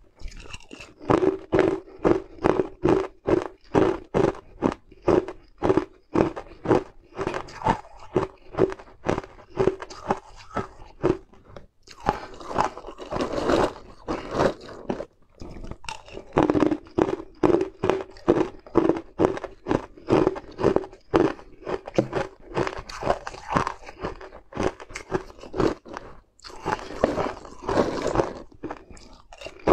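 Ice cubes being crunched and chewed close to the microphone: a fast, uneven run of sharp crunches, about two to three a second, coming in stretches with brief lulls.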